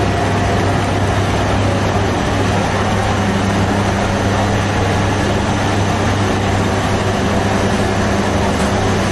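Steady, loud low hum with an even rushing noise over it, from a bakery's exhaust fan and oven running.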